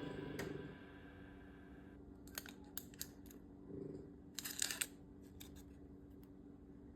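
Background music dies away in the first second, then faint light clicks and taps, with a quick cluster of them about four and a half seconds in.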